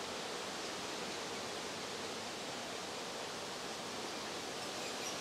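Saskatraz honey bees humming steadily around an open hive during a frame inspection. The hum is low and even, not frenzied, the sound of a calm colony.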